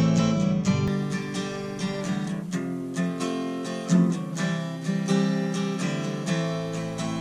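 Acoustic guitar strummed in steady chords, played live. About a second in the tone changes, the deepest bass falling away and the treble becoming brighter.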